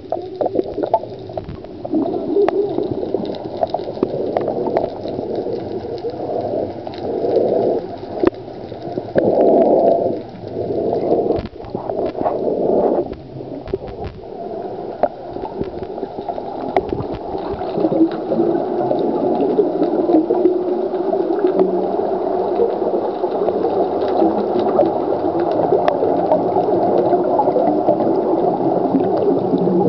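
Muffled gurgling and bubbling of seawater heard through an underwater camera, with uneven surges over the first half and a steadier rush afterwards.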